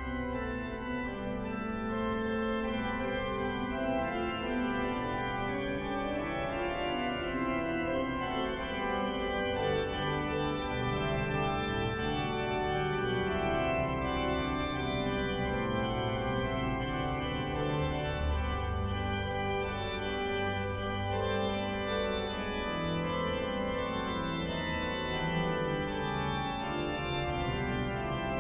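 Pipe organ playing sustained chords and slowly moving lines over a low bass line.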